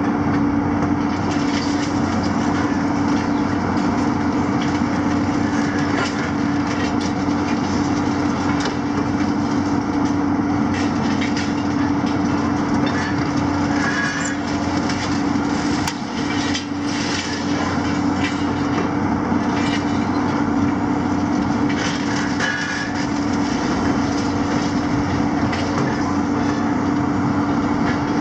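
Heavy tracked demolition excavators working: diesel engines and hydraulics run steadily under a constant hum, while a demolition grapple crunches and pulls apart concrete and masonry, with scattered cracks and the clatter of falling rubble.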